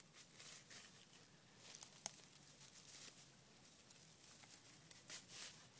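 Faint rustling and crackling of dry bracken fern fronds being pulled and broken off by hand, with a sharper snap about two seconds in.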